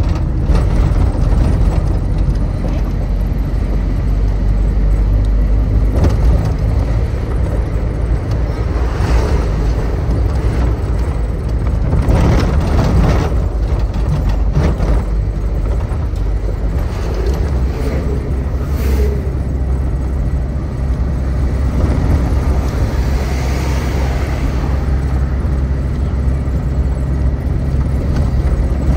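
Steady low rumble of road and engine noise from a vehicle driving along a highway, with a few louder swells as other traffic goes by.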